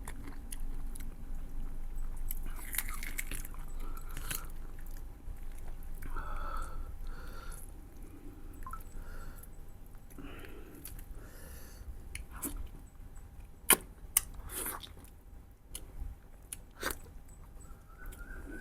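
Close-miked chewing of spicy mutton ribs with gravy and rice: wet mouth noises and bites, with two sharp clicks about three quarters of the way through.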